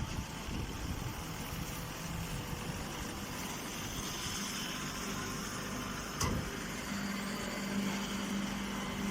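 Chopped-hay bagging baler machine running steadily, with a short knock about six seconds in and a steady low hum joining about a second later.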